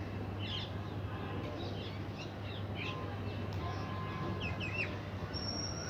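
Small birds chirping, many short quick calls overlapping, over a steady low hum.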